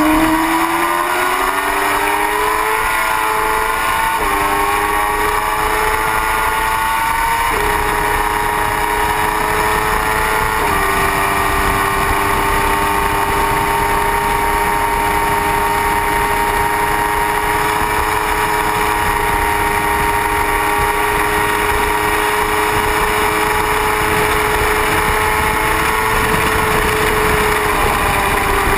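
Sport motorcycle engine heard from a camera mounted on the bike at speed: its note climbs for a couple of seconds and changes pitch in a few steps as it shifts up through the gears, then holds one steady high note at full speed for most of the time before easing off near the end. A steady rush of wind runs underneath.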